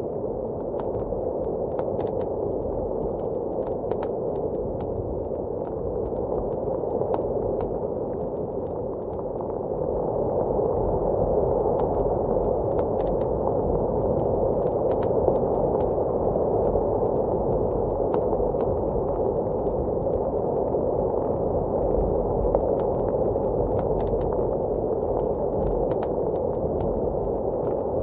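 Muffled blizzard wind rushing steadily, swelling a little about a third of the way in, under the sparse sharp pops and crackles of a wood fire burning in a fireplace.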